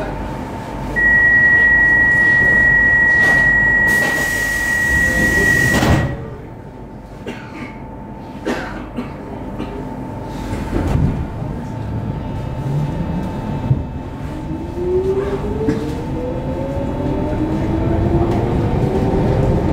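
Stockholm Metro C15 train heard from inside the carriage: a steady high door-closing warning tone sounds for about five seconds, joined by a hiss of air near its end. Both cut off suddenly as the sliding doors shut, and a few thuds follow. About two-thirds of the way in, the train pulls away and the traction motors set up a whine that rises steadily in pitch.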